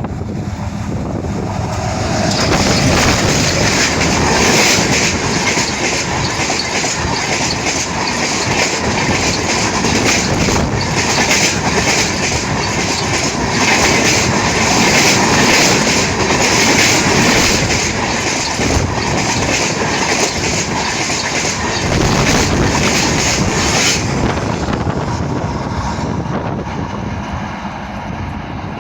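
Sachkhand Express passenger train rolling past, its coach wheels clattering in a quick rhythm over the rail joints. It grows loud about two seconds in and fades near the end as the last coaches go by.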